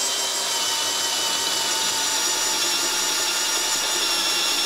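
Bosch 12-volt cordless hammer drill driving a 10 mm metal bit through steel clamped in a vise. It runs as a steady whine with a gritty cutting hiss, the bit cutting without trouble at the drill's rated steel limit.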